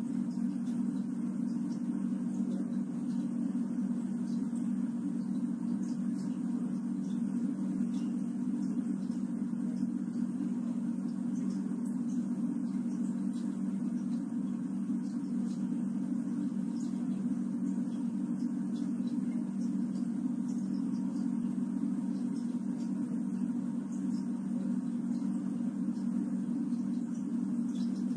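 Steady low hum of an electric fan running, even and unchanging, with no breathing rhythm in it.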